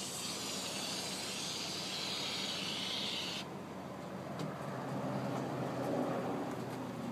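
Hand-held fire extinguisher discharging onto a burning boat-trailer wheel bearing: a loud, steady hiss that cuts off abruptly about three and a half seconds in. A lower rushing noise with a few faint clicks follows.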